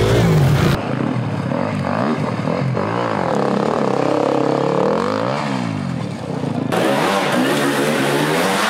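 Enduro dirt bike engine revving, its pitch rising and falling over and over as the throttle is worked. The sound changes abruptly about a second in and again near the end, where different recordings are spliced together.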